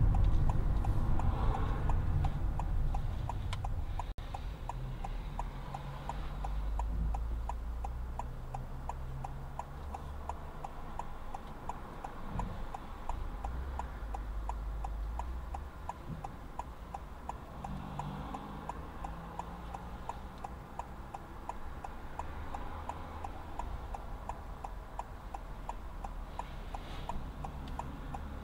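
Car's turn-signal indicator ticking steadily inside the cabin. Under it is a low engine and road rumble that eases off over the first few seconds as the car slows to a stop at the junction.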